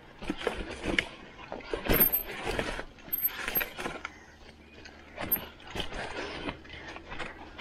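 Mountain bike rattling and clattering over a rough, rutted dirt trail: irregular knocks and rattles from the bike and its tyres hitting bumps, with a few brief high-pitched squeaks.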